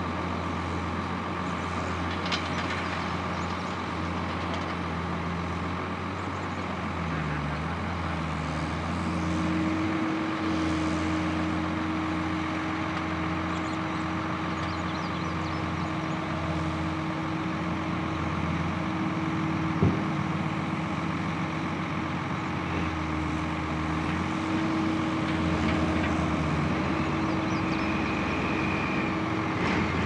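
Diesel engine of a John Deere 333D compact track loader running steadily under load as it works with a big bale, with a steady whine joining about a third of the way in. A single sharp knock comes about two-thirds of the way through.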